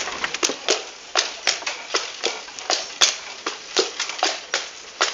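Horse's hooves clip-clopping on a paved road at a walk while it pulls a cart, about three strikes a second.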